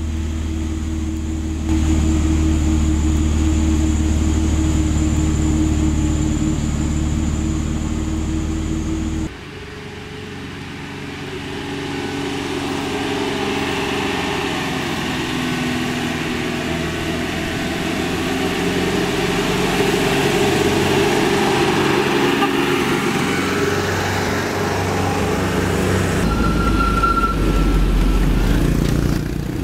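Diesel engines of light cargo trucks pulling uphill, in cut-together passes. First a steady low drone from a truck labouring just ahead. After a cut about nine seconds in, another truck's engine grows louder over several seconds as it approaches. Near the end a heavier low rumble comes as a truck passes close.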